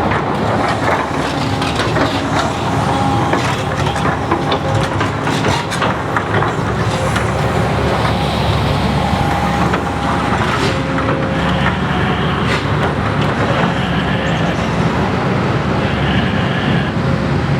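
Heavy road-works machinery with a diesel engine running steadily, with scattered clanks and knocks over it.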